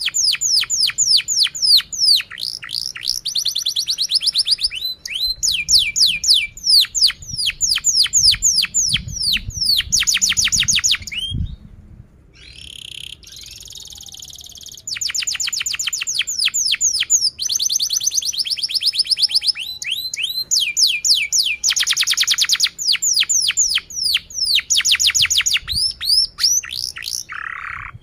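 Domestic canary singing a long song made of fast trills, each a run of rapidly repeated downsweeping chirps. The song breaks off briefly a little before halfway, then resumes with more trills.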